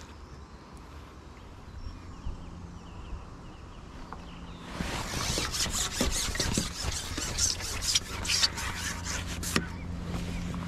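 Handling noise: the sleeve of a waterproof jacket rustling against a chest-mounted camera as the arm reaches across it. A dense crackling rustle starts about halfway in and lasts about five seconds, after a quiet first half.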